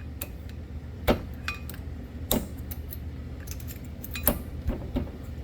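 Sharp metal clicks and clinks as thin brake pad clips are worked into a disc-brake caliper bracket, about eight separate ticks spaced irregularly, over a steady low hum.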